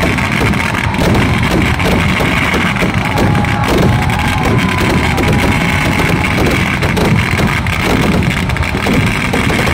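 Temple-festival fireworks (vedikkettu) going off in a dense, continuous barrage: rapid bangs and crackling run together without a break, loud throughout.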